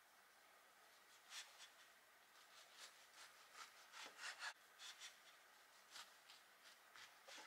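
Kitchen knife sawing through a loaf of sandwich bread on a wooden cutting board: faint rasping strokes through the crust, about two or three a second, starting about a second in.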